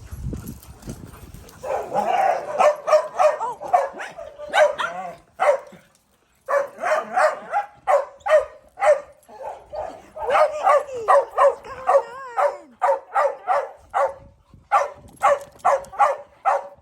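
Small dog barking in a rapid, repeated series, about two to three barks a second, with a short pause about six seconds in.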